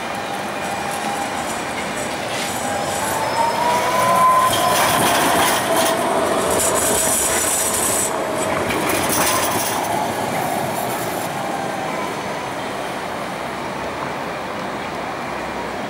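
Siemens Duewag articulated electric tram passing close on street track, its wheels running on the rails. Its electric drive whines, rising to a peak about four seconds in and then falling away. High-pitched wheel squeal on the curved track comes from about six to eleven seconds in.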